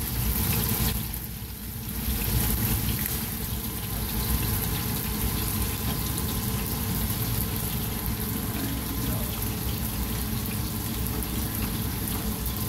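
Breaded fish fillets frying in oil and fried rice sizzling in a second pan, a steady hiss that dips briefly about a second in.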